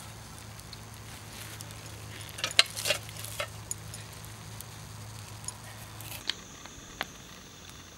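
A cluster of sharp clinks and knocks from hard objects being handled, loudest about two and a half to three and a half seconds in, with a few single clicks later. A low hum stops about six seconds in, and a steady high-pitched drone follows.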